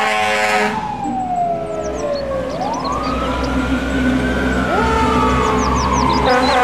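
Fire engine sirens wailing: one winds slowly down, then rises and slowly falls again, while a second siren rises about five seconds in, over the steady low rumble of the trucks' engines.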